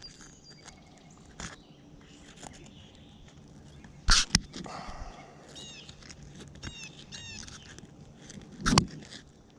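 Sharp knocks and clicks of handling, twice about four seconds in and once near the end, as pliers work a swallowed hook out of a small bass's gill. Between them comes a quick series of short high chirps.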